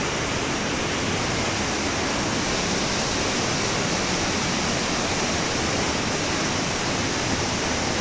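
Steady rushing of a mountain river running over rapids through a narrow rock gorge.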